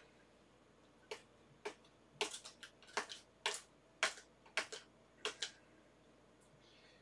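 Paper label being peeled slowly off a cardboard box: about a dozen sharp, irregular little clicks and ticks as the adhesive lets go under the fingers, stopping a couple of seconds before the end.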